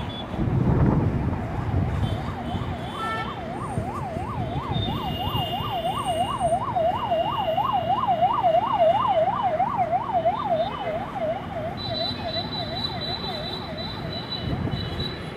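Emergency vehicle siren in a fast yelp, its pitch sweeping up and down about three times a second, growing louder and then fading away, over steady road traffic noise.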